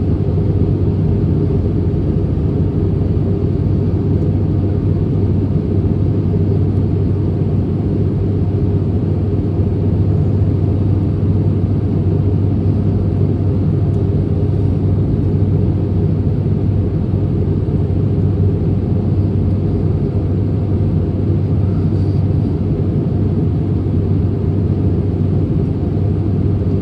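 Airbus A320neo airliner noise: a steady, unchanging drone of engines and airflow, dominated by a low hum.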